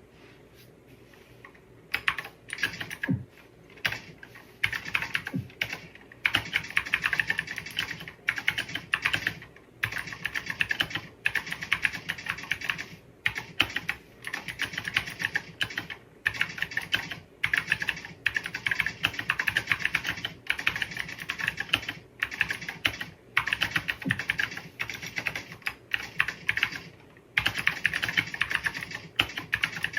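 Typing on a HUO JI mechanical keyboard with PBT keycaps: fast runs of keystrokes in bursts of a second or two with short pauses between, starting about two seconds in.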